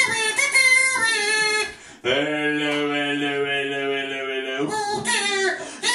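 A voice singing: a few quick sung phrases, then one long held note lasting about two and a half seconds, then more short phrases near the end.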